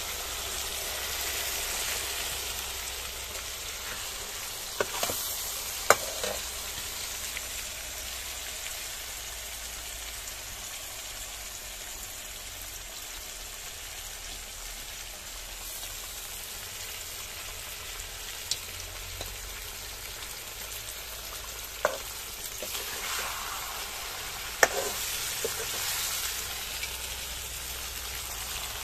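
Fried fish pieces sizzling in oil and masala in a kadai over a wood fire, a steady hiss, with a few sharp clicks scattered through it.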